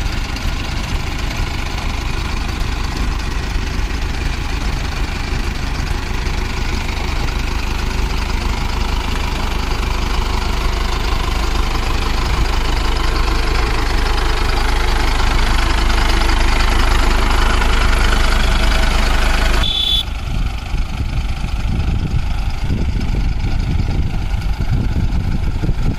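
Mahindra Arjun 555 tractor diesel engines running steadily while working to pull a tractor stuck in deep mud, growing louder toward the middle. About twenty seconds in the sound changes abruptly to a lower, rougher engine note.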